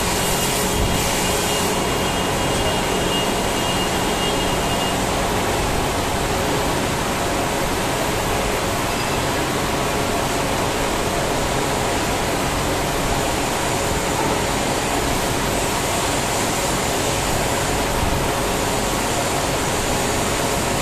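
Steady, loud rushing noise of running machinery, with a faint hum that fades out about five seconds in.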